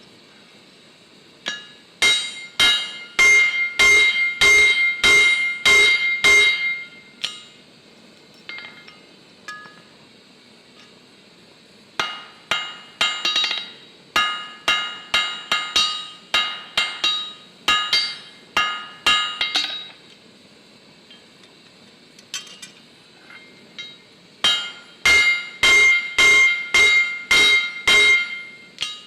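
Hammer blows on steel over an anvil in three runs, about two strikes a second, each with a bright metallic ring, as square heads are formed on lag bolts.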